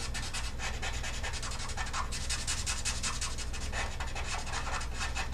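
Sharpie marker scrubbing back and forth on paper in quick, repeated strokes, filling in a solid black area.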